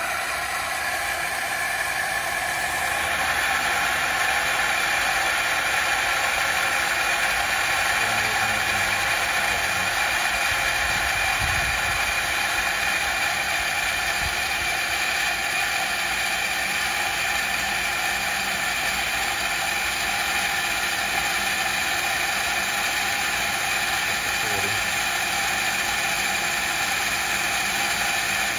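Drummond 1 HP cast-iron shallow well pump running steadily, its electric motor giving a constant whine as it pumps water and builds pressure in the system.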